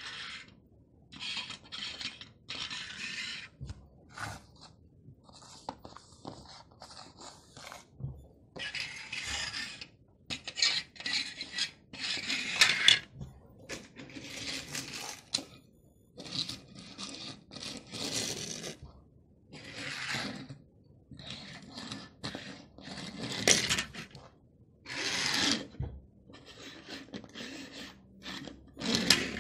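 Die-cast toy cars pushed by hand across a wood-grain laminate surface: their small wheels roll and scrape in many short bursts with brief gaps between.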